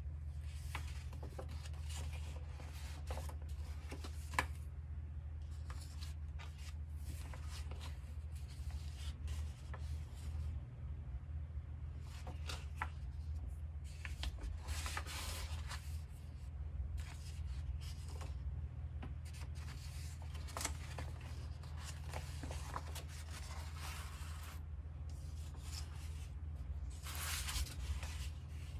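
Large paper poster pages of a softcover book rustling and sliding as they are unfolded and turned by hand, in irregular bursts that are busiest about halfway through and near the end. There is one sharp paper tap a little after four seconds, and a steady low hum underneath.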